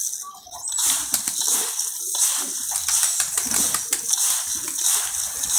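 Dry grain and paddy being stirred and mixed by hand in a container: a dense rattle of many small clicks.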